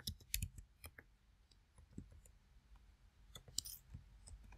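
Computer keyboard keys clicking in scattered, irregular keystrokes, with a few quick ones in the first second and a small cluster about three and a half seconds in.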